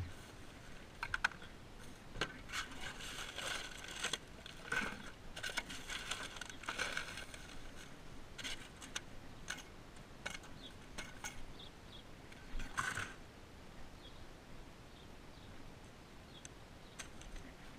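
Rustling, light scraping and clicking as bags and boxes are handled in a cart's cargo bed, in short scattered bursts, busiest in the first half with one more a little past the middle.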